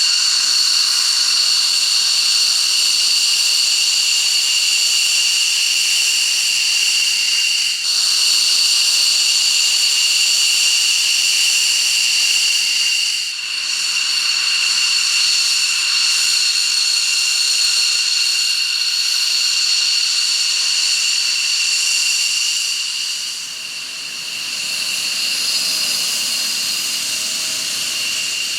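Military jet engine running with a steady high-pitched whine over a hiss, the level dipping briefly twice.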